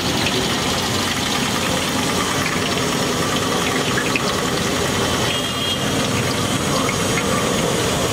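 Batter-coated green chillies (mirchi bajji) deep-frying in a large kadai of hot oil: a steady sizzle over a low, steady rumble.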